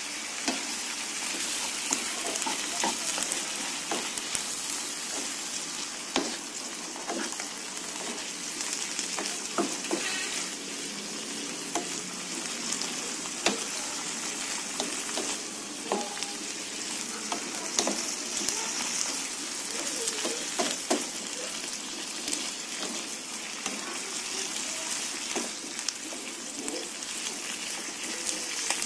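Sliced bamboo shoots sizzling as they stir-fry in a frying pan, with a steady hiss and frequent short clicks and scrapes as a spatula stirs and tosses them against the pan.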